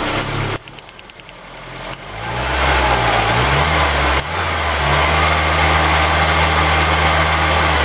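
VW Golf petrol engine running on new spark plug leads and plugs. It drops away sharply about half a second in, builds back up over the next two seconds, then runs steadily.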